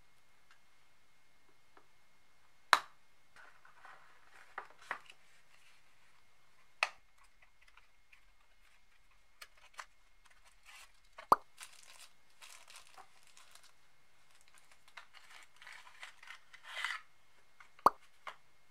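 Handling of an earbud charging case and its packaging: four sharp clicks or knocks spread through, with softer taps between them. In the latter part, paper crinkling and rustling as a small paper wrapper is unfolded.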